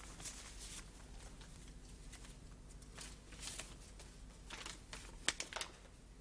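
Faint rustling and handling noises in a small room, with a cluster of sharper rustles and clicks a little past five seconds in.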